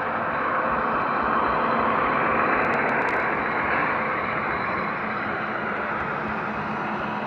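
Gauge 1 model diesel trains running past on the layout: a steady rolling rumble with a low steady hum, swelling a little in the first few seconds, and a few faint ticks about halfway through.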